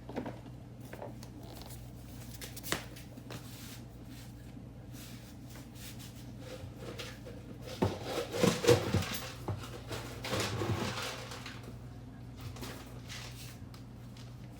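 Dry dog kibble being handled and served: a clattering rattle about eight seconds in and again around ten seconds, with a few light clicks before, over a steady low hum.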